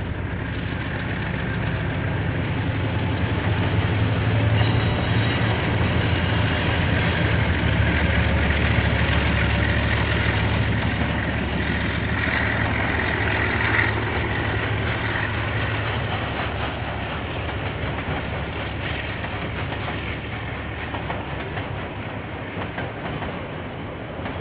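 Diesel locomotive hauling a train past, its engine hum building to a peak and then slowly fading as the train rolls on.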